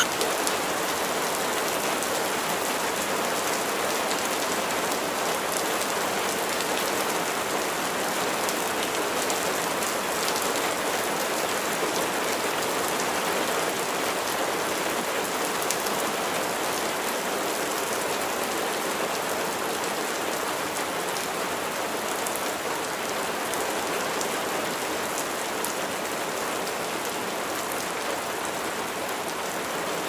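Steady rain falling, a dense even hiss flecked with the ticks of many small drops.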